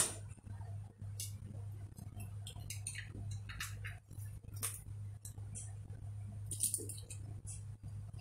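Small plastic saffron packet being handled and crinkled: a string of short, irregular crackles, over a steady low hum.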